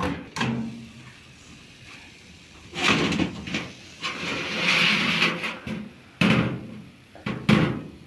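Oven door clunking open, then a metal baking pan scraping as it is dragged out along the oven rack, with several sharp knocks of pan and oven metal near the end.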